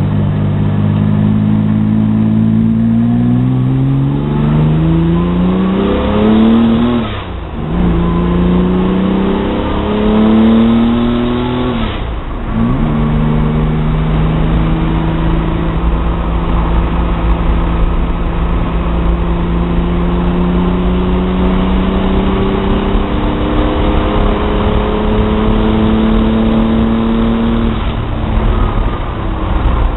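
Engine with advanced cam timing pulling hard under load, its revs climbing and dropping sharply twice, about seven and twelve seconds in, as it shifts up. It then makes a long, slower climb in a higher gear before the revs fall away near the end.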